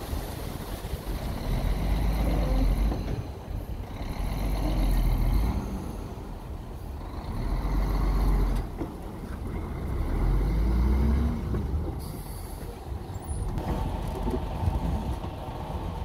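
Diesel dump truck engine revving in repeated surges, rising and falling four times about three seconds apart, while the tipper bed is raised to dump its load.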